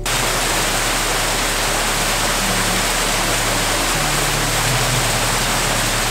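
A small waterfall cascading over rocks: a steady, loud rush of water that cuts in suddenly. Soft background music with low held notes runs underneath.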